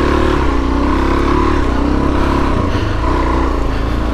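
Suzuki DR-Z400S dual-sport motorcycle's single-cylinder four-stroke engine running under load, its pitch rising and falling a little with the throttle.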